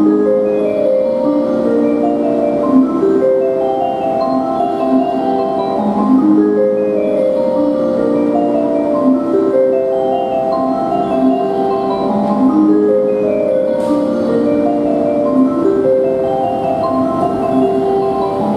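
Train-approach melody on a station platform: a bright marimba-like tune of quick mallet notes played over the PA, signalling that a train is approaching the platform.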